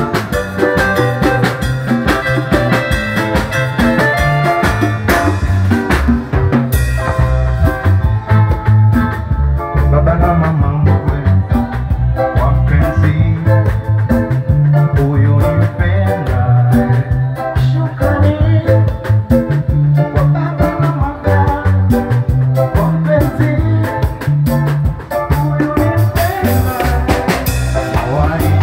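A live band playing an upbeat song: electric guitar, congas, drum kit and keyboard, with a strong, steady bass line.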